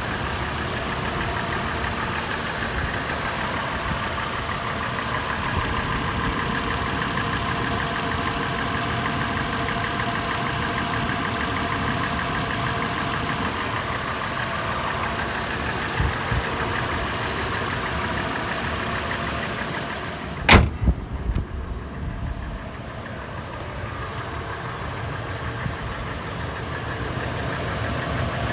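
Toyota FJ engine idling warm with a steady clattering tapping that the owner is trying to trace. A single sharp knock comes about 20 seconds in, after which the engine sounds duller and quieter.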